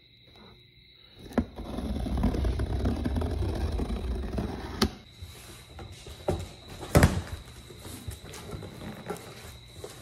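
A cardboard shipping box being opened and handled: about three seconds of scraping and rustling cardboard, then quieter rustling of the flaps with a few sharp knocks, the loudest about seven seconds in.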